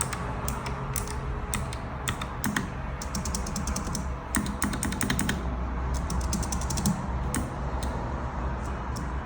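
Typing on a Nuphy Air60 low-profile mechanical keyboard with Gateron Blue clicky switches: quick runs of sharp key clicks separated by short pauses.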